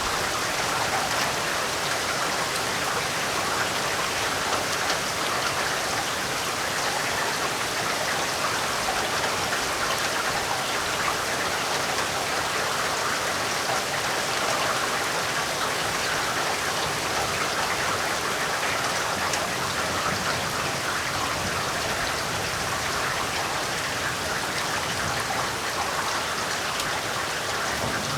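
Heavy rain falling steadily: a dense, even hiss of drops that keeps the same level throughout.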